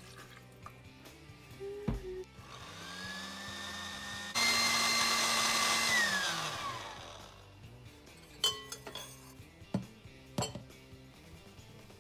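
Countertop blender blending avocado chunks: the motor starts, steps up louder to a higher speed about two seconds later, then is switched off and spins down with a falling whine. A few sharp clicks and knocks follow.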